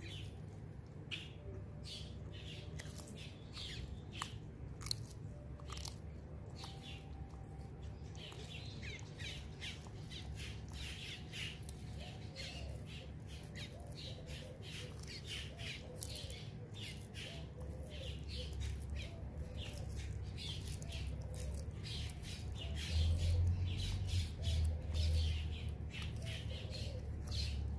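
Sulcata tortoise chewing bell pepper and greens: a dense, irregular run of crisp crunches and bites. A low rumble comes in near the end.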